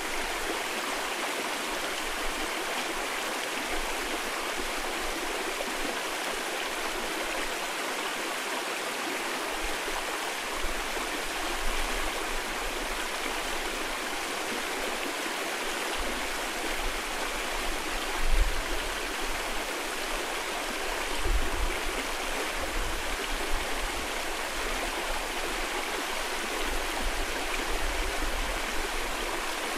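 Mountain valley stream rushing steadily, with a few low rumbling buffets of wind on the microphone, the strongest about two-thirds of the way through.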